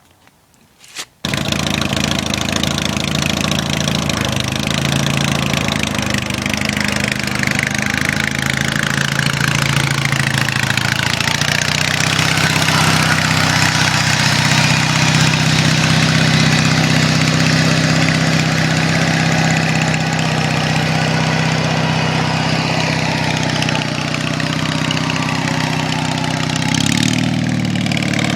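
Rat rod Troy-Bilt riding mower's twin-cylinder 18-horsepower David Bradley engine coming in abruptly about a second in, then running steadily with slight changes in pitch.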